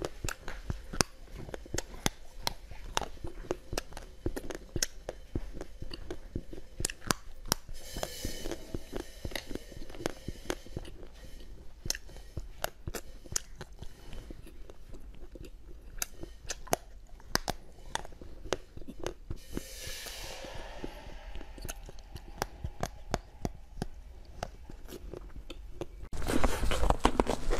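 Close-up eating sounds: crunchy bites and chewing of hard, bolt-shaped treats, a steady run of sharp crunches. Near the end the sound jumps louder as a different eating clip begins.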